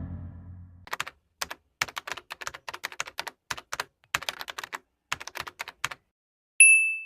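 Keyboard typing: quick irregular clicks of keys for about five seconds, then a single short high ding near the end.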